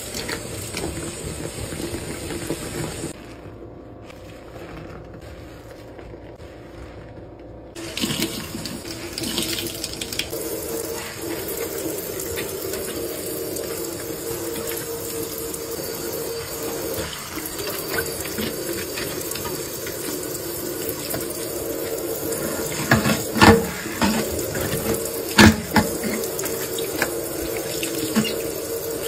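Tap water running into a stainless steel kitchen sink while it is scrubbed with a sponge; the water sound drops away for a few seconds a few seconds in, then returns. Two sharp knocks against the sink come near the end.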